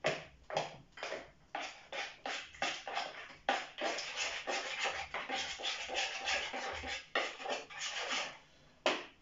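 Spoon scraping around a plastic mixing bowl while stirring a marinade, in quick repeated strokes of about three a second that come faster through the middle.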